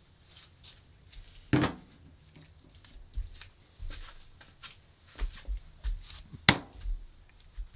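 Powder-coated metal lunch box set down on a workbench with a knock about one and a half seconds in, then the metal thermos set down beside it with a sharp knock near the end, with smaller handling knocks and clicks between.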